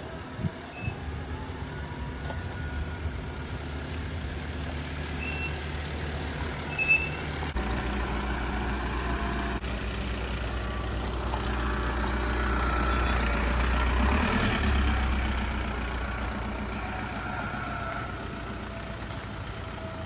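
Diesel engines of a Toyota Fortuner and a Skoda Octavia 1.9 TDI running as the cars move off, growing louder to a peak about two-thirds of the way through, then easing off.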